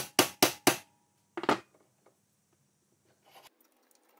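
A mallet rapping the drill press chuck to seat it on the spindle taper: four sharp knocks in quick succession, then one more about a second and a half in.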